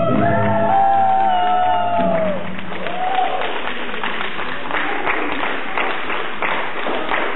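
A swing tune ends on a held final chord that slides down and stops about two seconds in, followed by an audience clapping, with a few voices calling out.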